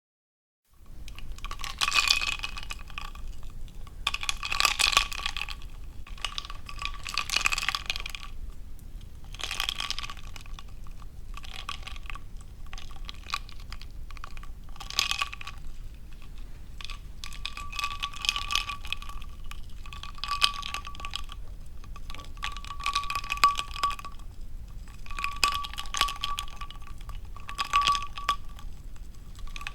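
Ice cubes clinking against a glass of water in about a dozen short bursts, two to three seconds apart, with the glass ringing on each.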